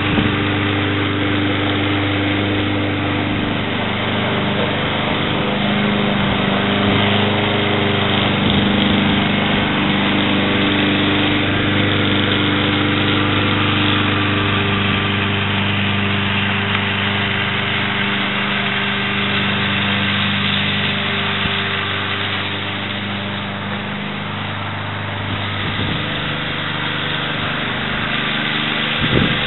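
Ariens Blade Runner walk-behind mower, its Kohler Courage 173cc single-cylinder engine running steadily under load while cutting grass and bagging leaves. The sound drops a little a little after twenty seconds in as the mower moves farther off, then grows louder again near the end.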